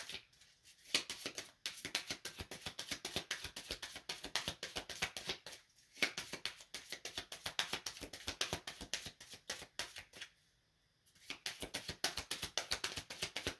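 Tarot cards being shuffled by hand: a fast run of papery clicks, pausing briefly twice and for about a second near ten seconds in.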